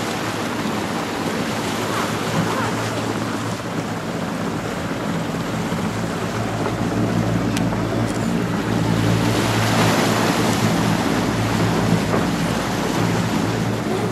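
Maritime rescue helicopter hovering low over the sea: a steady rotor and turbine drone that grows louder about halfway through, mixed with wind on the microphone.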